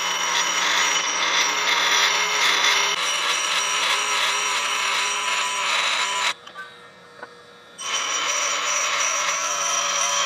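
Half-horsepower Baldor bench grinder's abrasive wheel grinding a high-speed steel lathe tool bit held against it by hand, a steady harsh grinding over the motor's hum. The grinding breaks off for about a second and a half a little past the middle, then resumes.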